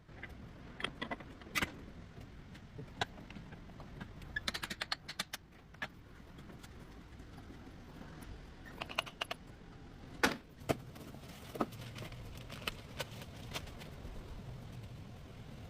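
Irregular metallic clicks and clinks, some in quick clusters, with a few louder knocks, over a low steady rumble: the handling of tools and metal parts during car repair work.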